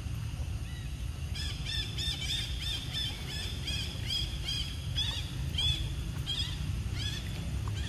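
A bird calling a long series of short, arched notes, about three a second, starting about a second and a half in and slowing near the end, over a steady low rumble.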